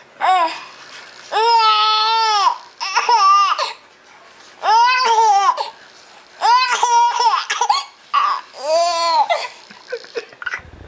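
High-pitched laughing in six drawn-out bouts of about a second each, the pitch arching up and falling away in each, with short pauses between.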